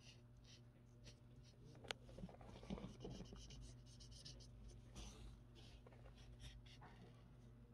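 Faint scratchy strokes of a black felt-tip marker drawing on paper, over a low steady hum, with one light click about two seconds in.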